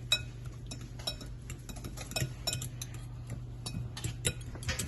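Cutlery clinking and scraping irregularly against a bowl while ripe bananas are mashed, with a steady low hum underneath.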